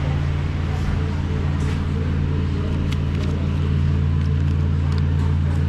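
Steady low drone of a vehicle engine and road noise, unchanging throughout.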